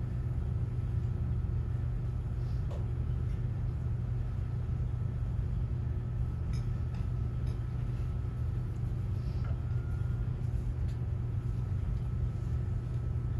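Steady low rumble of room tone, with a faint steady high tone above it and a few faint scattered knocks.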